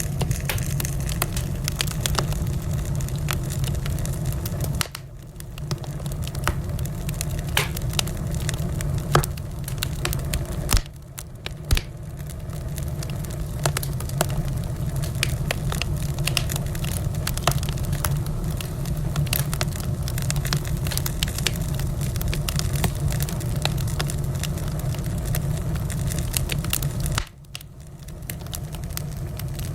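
Wood fire crackling: many sharp pops and snaps over a steady low rumble of flame. The whole sound drops away briefly about 5, 11 and 27 seconds in.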